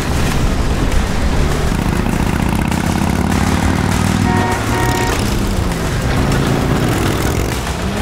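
Vehicle engines running with a steady low rumble as an open military jeep and a motorcycle drive through a street.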